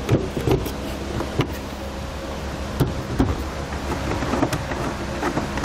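A plastic tail light housing is pressed and knocked into place against a car body: a few short sharp clicks and knocks, spread out, over a steady low hum.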